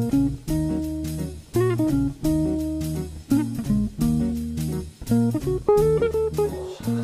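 Background music: a plucked guitar tune over a steady bass line, in a bluesy, jazzy style.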